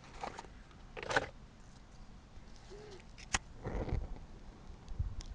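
Faint rustling and handling noise close to the microphone, with a few sharp clicks, the strongest about three seconds in.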